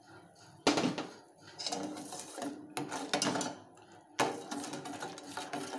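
Steel spoon clinking against a stainless steel saucepan and stirring sugar syrup: a sharp clink about a second in and another near the end, with scraping of the spoon in the pan between them.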